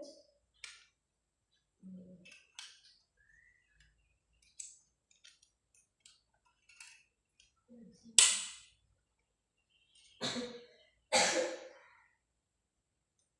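PCP air rifle: small handling clicks, then one sharp shot about eight seconds in, followed by two more loud bursts of noise near the end.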